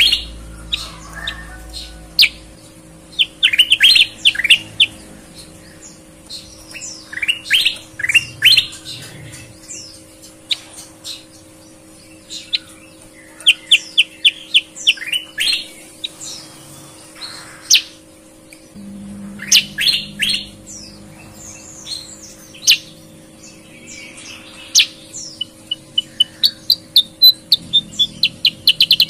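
Caged bulbul (kutilang) singing clear, bright song: phrases of quick, sharp repeated notes every few seconds, ending in a longer run of rapid repeated notes near the end. A faint steady hum sits underneath.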